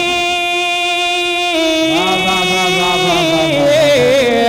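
A man singing a naat into a microphone over a PA. He holds one long high note, then about a second and a half in slides into a winding, ornamented melodic run.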